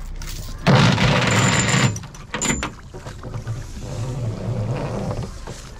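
A splash as a released fingermark, hung on a release weight, is dropped over the side and sent down into the sea, followed by water and wind noise at the boat.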